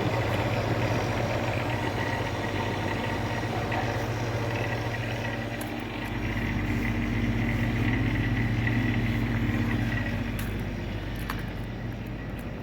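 Commercial refrigerator's compressor running with a steady hum, cooling again after its failed contactor was replaced. A few light clicks near the end.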